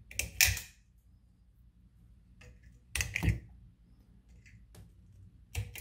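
Knife blade scraping and picking at the cracked plastic rim of a banjo steering wheel, in three short scratches: about half a second in, around three seconds, and near the end. It is clearing loose material out of the cracks before they are filled with epoxy putty.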